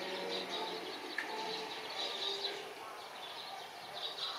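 Small birds chirping in short repeated bursts over a faint steady background hum.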